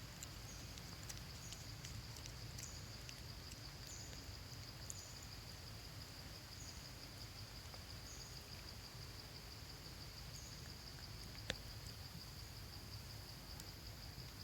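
Insects droning outdoors: a steady, high, continuous buzz with short, higher chirps about once a second, and a few faint clicks, one sharper than the rest near the end.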